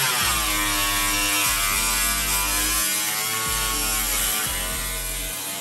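Angle grinder with a cutoff wheel cutting through two layers of car-body sheet steel. Its steady high whine sags in pitch as the wheel loads up in the cut and picks up again as it frees.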